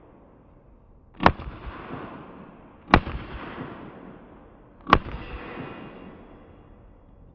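Three pistol shots, about a second and a half to two seconds apart, each followed by a rolling echo that dies away.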